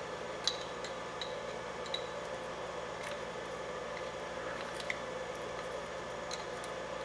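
Pliers clicking lightly against the metal hub and nut of an RC buggy's wheel hub assembly, a handful of small ticks spread across several seconds, over a steady low background hum.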